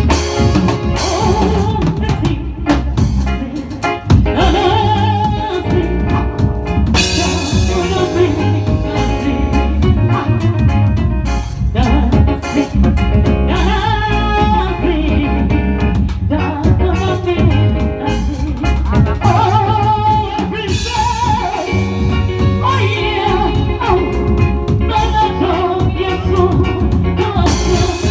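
A band playing a song: drum kit with rimshots, over keyboards.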